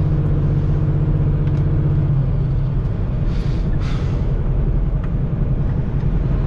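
A semi-truck's diesel engine runs under steady road rumble. About two seconds in, the even engine hum breaks up into a rougher rumble, and a second or so later there are two short hisses.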